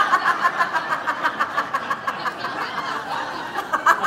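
A woman laughing heartily on cue as a deliberate laughter exercise, in quick ha-ha pulses that ease off a little about two seconds in and pick up again near the end.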